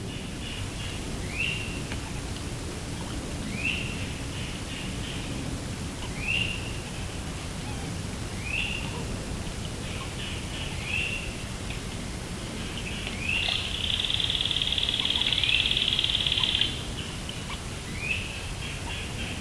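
Wood ducks calling: short rising squeals repeated about every two seconds. Partway through, a steady buzz sounds for about three seconds and is the loudest part.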